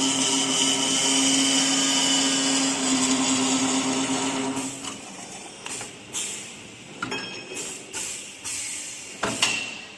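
Automatic CNC pipe cutting machine running with a steady motor hum for the first five seconds or so. The hum then drops away, leaving a series of sharp clicks and clanks, the loudest one near the end.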